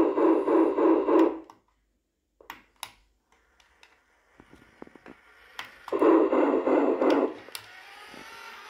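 Radio-controlled toy steam locomotive playing its electronic train sound effect, a loud buzzy chugging that cuts off after about a second and a half. A few clicks of the handset's buttons follow, then the chugging sounds again for about a second and a half, trailing off into a faint rising whine.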